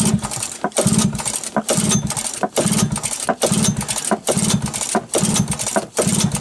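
Suzuki quad bike's small petrol engine being cranked over by hand, with the choke on, in quick repeated pulls. There are about eight short spins roughly 0.8 s apart, and none of them catches: a failed cold start, which the owner puts down to there being hardly any fuel in it.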